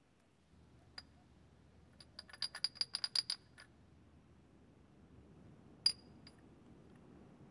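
A small tin can knocking and rattling as it is moved, each clink with a light metallic ring. There is one clink about a second in, then a quick run of about ten, then another clink near six seconds.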